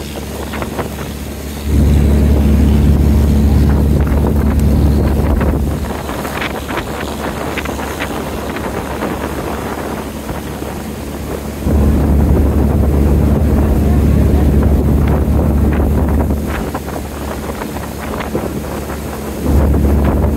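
Small wooden boat's engine running steadily as the hull cuts through choppy water, with splashing spray. Wind buffets the microphone in long loud gusts about two seconds in, about twelve seconds in and again near the end.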